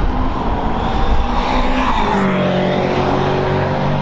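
McLaren 720S GT3 Evo race car's twin-turbo V8 running as the car approaches. The engine note drops in pitch about halfway through, then holds steady.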